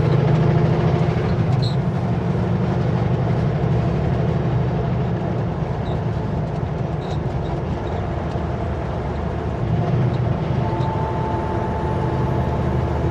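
Kenworth W900L semi-truck cruising on the highway, heard from inside the cab: a steady diesel engine drone over road noise.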